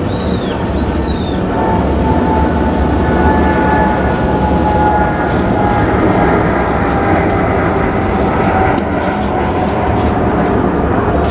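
Boeing 787 jet engines at climb thrust, a steady rumble from overhead with a faint whine that slowly falls in pitch as the airliner moves away. A bird calls a few times near the start.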